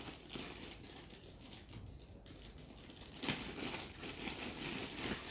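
Soft rustling and crinkling of packaging and parts being handled, with a few light clicks and a sharper rustle about three seconds in.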